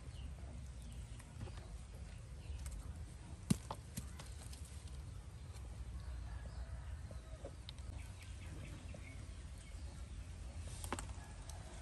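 Plastic seedling pots and potting soil being handled, giving a few light clicks and knocks, one sharper click about three and a half seconds in, over a steady low outdoor rumble.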